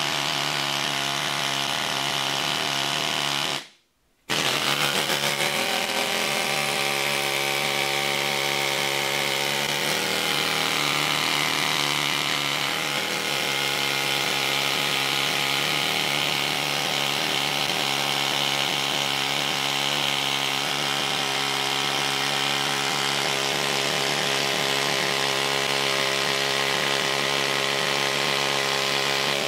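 Pneumatic air hammer chattering steadily as its chisel chips old paint off the cast-iron column of a Bridgeport milling machine. It stops briefly about four seconds in, then runs on.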